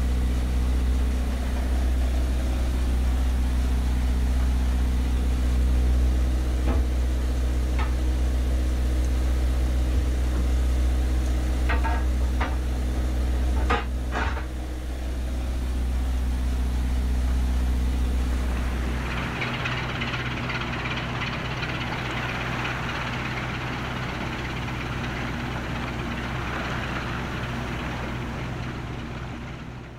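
1941 Vivian diesel engine running steadily in the tug's engine room, a deep even rumble, with a few sharp metallic clicks and knocks about halfway through. About two-thirds of the way in the deep rumble drops away and a steady hiss carries on until a fade at the end.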